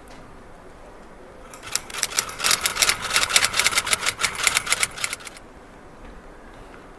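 Typewriter sound effect: a rapid run of key strikes, about eight a second, starting after a second or so and stopping abruptly before the end, where the end of the sound clip has been cut off.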